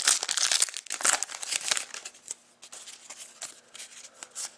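A trading-card pack wrapper crinkling and tearing as it is opened, most intense for about the first two seconds, then lighter rustles and clicks as the cards are handled.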